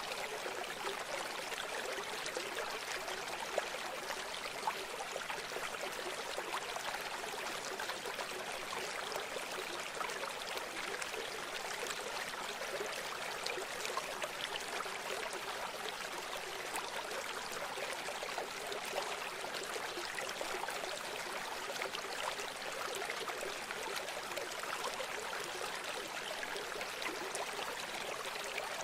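River water flowing in a steady, unbroken rush, with a few brief louder splashes.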